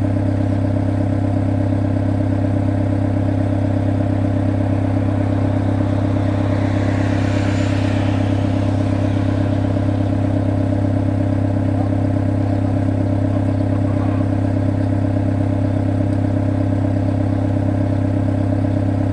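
Excavator's diesel engine running at a steady speed with a constant low hum. A brief hissy noise swells and fades about seven seconds in.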